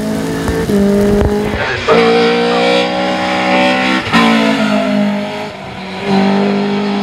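A 1979 Opel Kadett C hillclimb car's 2-litre 16-valve four-cylinder racing engine running hard at high revs. Its pitch drops and climbs as it comes off the throttle and pulls again, with abrupt jumps where separate passes are spliced together.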